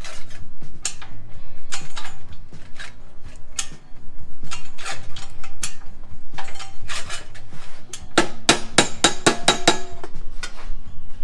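Sharp metal-on-metal strikes on a sheet-steel repair panel as a buckle in it is shrunk out. Irregular single blows, then a quick run of about ten ringing strikes near the end.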